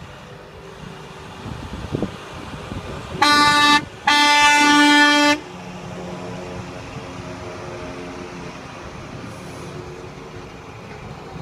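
Horn of a hi-rail truck on the rails sounding two blasts, a short one followed by a longer one. The engine of a hi-rail vehicle running past follows at a lower level.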